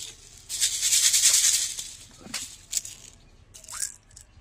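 Small hard candy beads rattling inside a plastic bottle as it is shaken for about a second and a half, followed by a few sharp clicks.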